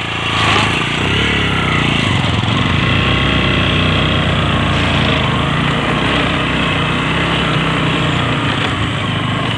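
Motorcycle engine running steadily under load while climbing a rough dirt track. It gets louder about half a second in, then holds.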